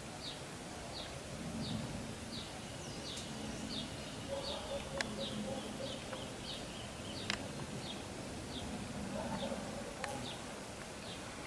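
Outdoor garden ambience: a short, high chirp repeating steadily a little faster than once a second, with a faint low hum that swells and fades and a few sharp clicks.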